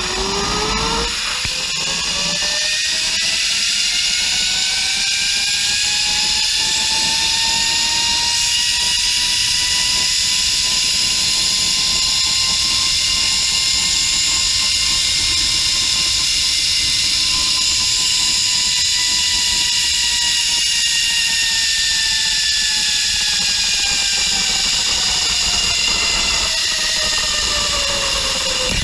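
Zipline trolley pulleys whining as they roll along the steel cable. The pitch rises as the rider picks up speed, holds steady through the middle of the run, and falls near the end as the trolley slows toward the landing platform. A steady rushing hiss runs underneath.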